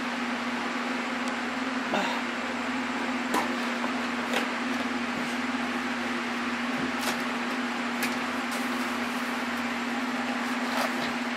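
Steady hum of a running electric motor with a constant tone, with a few light clicks and knocks scattered through it.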